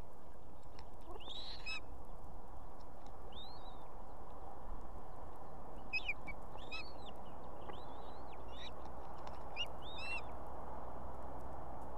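Ospreys at the nest giving short, high, arched chirping calls, about eight of them spaced irregularly, during a fish feeding. A steady hiss and low hum run underneath.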